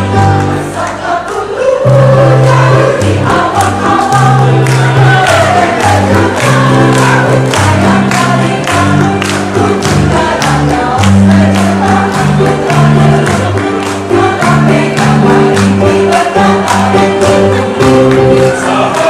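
Mixed choir singing with electronic keyboard accompaniment: held bass notes and a steady beat under the voices.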